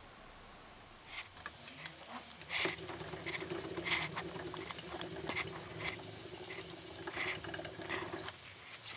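Fine P1200 silicon-carbide sandpaper on a sanding block rubbed back and forth along a steel cleaver blade, in steady strokes about 0.7 s apart. It starts about a second in and stops shortly before the end.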